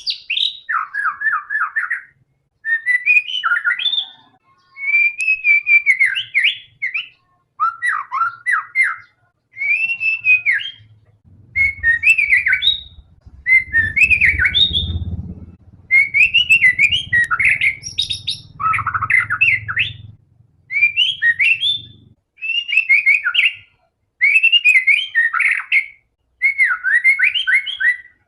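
A white-rumped shama (murai batu) singing in full, vigorous song, with quick, varied phrases about a second long repeated over and over after short pauses. A low rumble sits under the song for several seconds in the middle.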